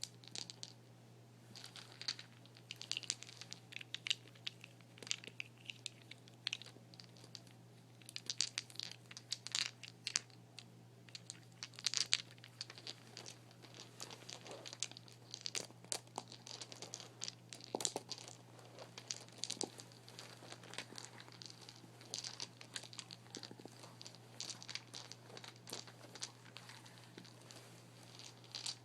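Close-up crinkling and crumpling of a thin, crinkly material being handled, a continuous run of irregular crackles with no steady rhythm.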